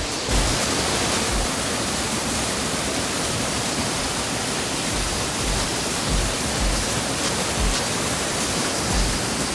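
Waterfall rushing, a loud steady roar of falling water, with occasional low thumps underneath.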